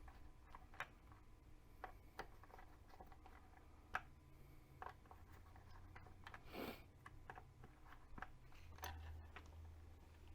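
Faint, scattered clicks and light taps of small RC wheel parts being handled, with one brief rustle about six and a half seconds in, over a low hum.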